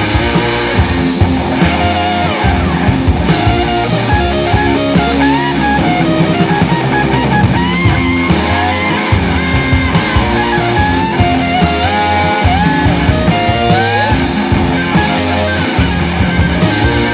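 Loud rock music with electric guitar lead lines over bass and drums.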